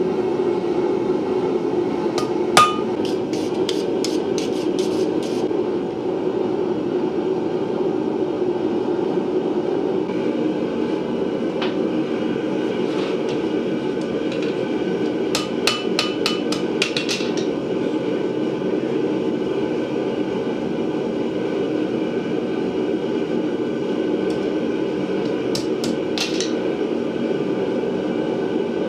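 A forge running with a steady rushing noise, with three short runs of light, quick hammer taps on metal: a few seconds in, about halfway through, and near the end.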